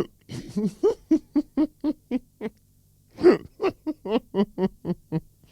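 A woman's ugly laugh: a quick run of short ha-ha pulses, about five a second. After a brief pause comes one loud burst, then a second run of pulses.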